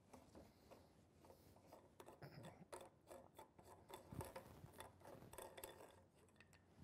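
Faint rubbing and light clicks of the plastic check valve nut on a MixRite TF25 dosing pump being unscrewed by hand. The clicks come mostly from about two seconds in until near the end.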